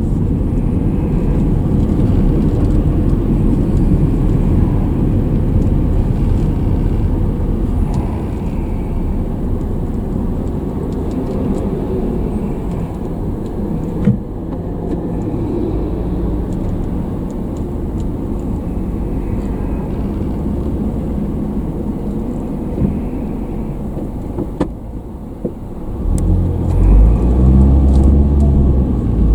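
Steady engine and road noise of a car being driven, heard from on board, with a single brief knock about halfway through. Near the end an engine note grows louder and its pitch rises and falls.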